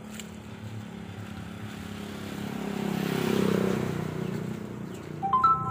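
A motor vehicle passes along the road, its engine sound swelling to a peak about halfway through and then fading. Near the end comes a brief, loud high-pitched call of three quick rising notes.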